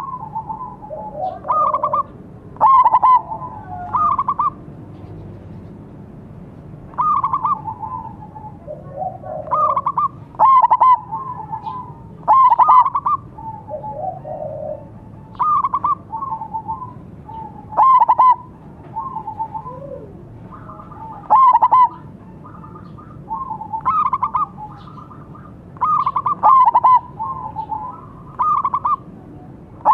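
Zebra doves (perkutut) cooing: short, rapid coo phrases repeat about every two seconds. A silver-coloured dove sings, and a second, ordinary-coloured dove joins in.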